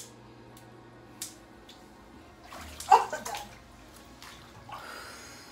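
Milk-bath water sloshing in a bathtub as someone shifts about in it, with a few sharp clicks and a louder splash about three seconds in.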